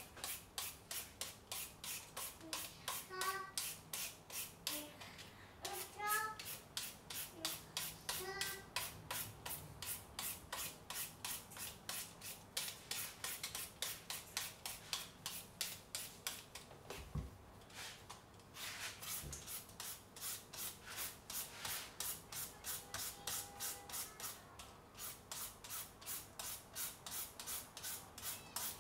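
Green papaya being shredded by hand with a shredding tool: rhythmic rasping strokes, about three a second. The strokes pause briefly past the halfway mark, where there are a couple of dull knocks. A few faint high chirps sound in the first several seconds.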